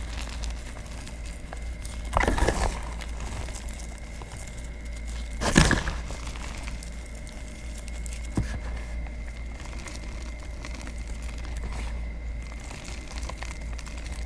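Gym chalk and cornstarch powder being crushed and crumbled by a gloved hand. Two louder crumbles come about two seconds and five and a half seconds in, over a steady low hum.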